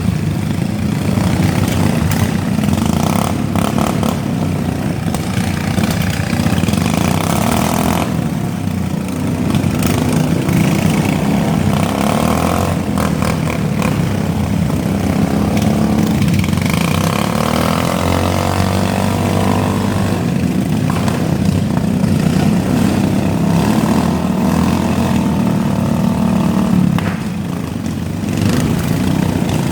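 Several riding lawn mower engines running and revving in a demolition derby, their pitch rising and falling, with a few sharp knocks of mowers hitting each other.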